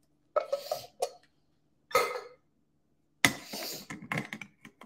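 Metal cans and a handheld can opener clattering in a few short separate knocks, then a louder clank about three seconds in as the opener is fitted onto a can, followed by a run of small quick clicks near the end.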